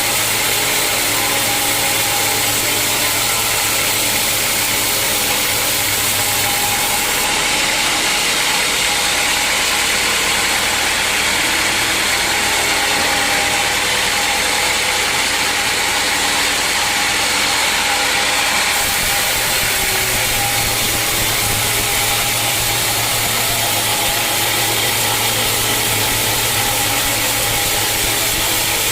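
Sawmill machinery running steadily: an engine drone under a loud, even hiss. About seven seconds in the low drone drops away, and it comes back about twelve seconds later.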